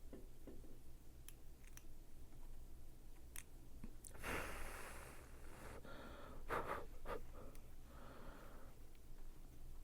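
A person breathing out a few times close to the microphone, with a few faint clicks of handling at the workbench.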